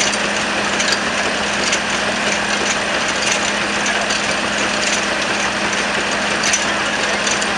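Vintage frame saw running, its reciprocating blades sawing through a log: a steady mechanical noise with a faint knock about every 0.8 seconds.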